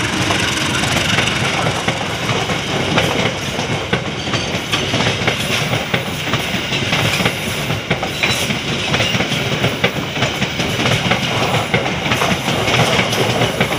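Economy-class passenger coaches of a train rolling past close by: a steady rumble of wheels on rail, with irregular clicks and clatter as the wheels run over the rail joints.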